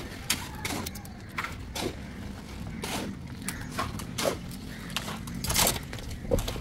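Irregular knocks and scrapes of hand tools and pans during manual concreting of a small slab, with a longer scraping stretch near the end.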